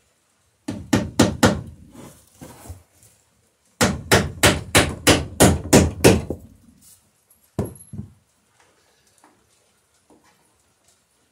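Hammer driving nails into a wooden boat plank: a quick run of about five blows, then a longer run of about ten blows at roughly four a second, and one last knock near the end. The nails are going in easily.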